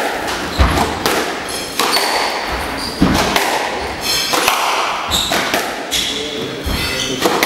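Squash rally: the ball cracking off rackets and walls about once a second in a large, echoing court, with shoes squeaking short and high on the wooden floor between shots.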